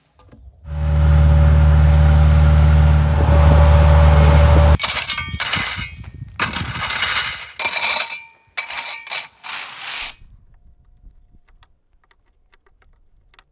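A small power tool's motor runs steadily for about four seconds and stops abruptly. Then a long-handled metal-bladed tool scrapes along the edge of the concrete pad and through the gravel in about five separate strokes.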